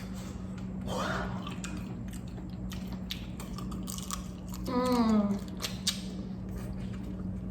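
Eating sounds of hard-boiled eggs being chewed, with scattered soft mouth clicks, over a steady electrical hum. About five seconds in comes one short vocal sound falling in pitch.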